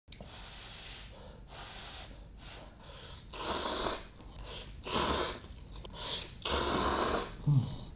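A person loudly slurping hot ramen noodles in a series of separate hissing, sucking slurps, each up to about a second long. A short grunt comes near the end.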